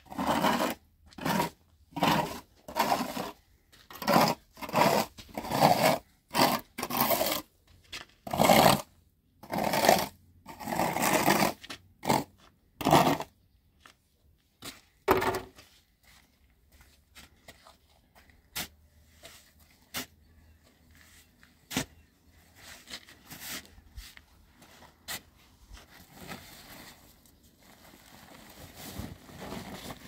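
Hand tool scraping up cement and sand from hard ground, about one rough stroke a second, for roughly the first half. After that there are only quieter scuffs and a few sharp clicks.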